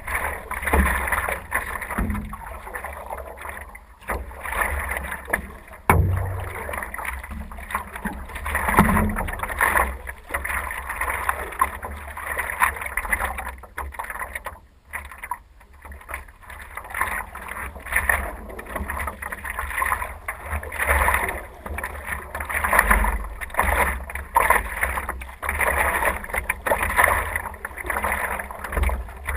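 Kayak paddling: a double-bladed paddle dipping and pulling through lake water in a rhythm of splashing strokes, about one a second, with a short pause about halfway through. Wind rumbles on the microphone throughout.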